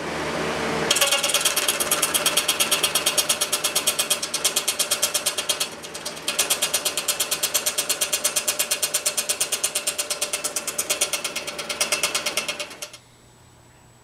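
Scroll saw cutting through a copper-clad circuit board, a fast, even chatter of blade strokes, played back sped up. It breaks off briefly about halfway through and stops about a second before the end.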